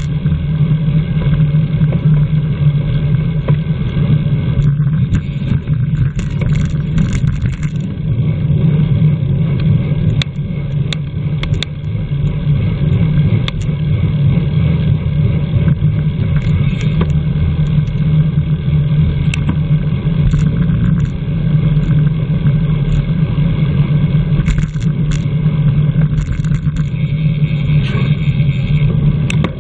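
Steady, loud wind and road rumble from a road bicycle racing at speed, heard from a microphone riding on the bike, with scattered sharp clicks.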